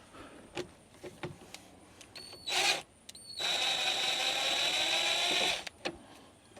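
Cordless drill-driver running in two pulls of the trigger while removing screws: a brief burst about two and a half seconds in, then a steady run of about two seconds that stops suddenly.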